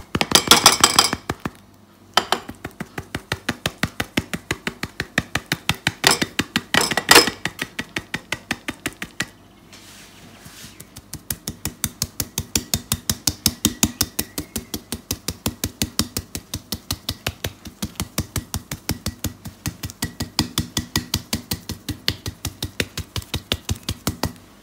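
A small metal sieve tapped rapidly and evenly, several light taps a second, to sift cocoa powder over glasses of dessert. There are louder, busier stretches of tapping near the start and again about six seconds in, and a short let-up about ten seconds in.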